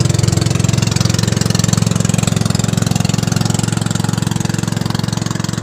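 Small outrigger fishing boat's engine idling steadily with a fast, even pulse while the net is hauled.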